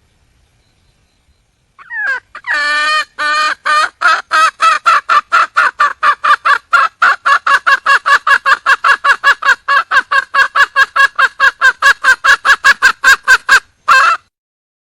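Red junglefowl hen calling for a male. About two seconds in come a few longer notes, then a fast, even run of short cackling notes, about five a second, for some ten seconds, ending with one last note.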